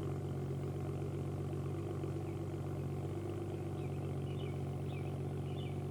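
Car engine idling steadily, picked up at its twin exhaust outlets.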